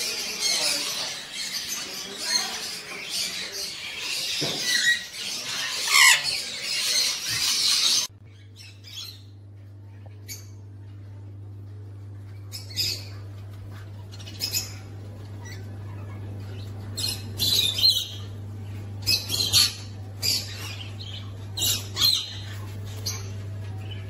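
Pet parrots in a shop chattering, squawking and chirping together, with a few rising chirps. After a sudden cut, only a steady low hum remains, broken by scattered short squawks and chirps from a young hand-reared galah being held.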